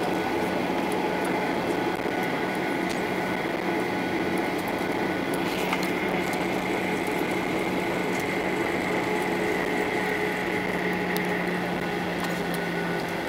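Steady cabin noise inside a Boeing 737-800 on the ground before takeoff: engines and cabin air running as an even rush with a steady low hum and higher tones, and a few faint clicks.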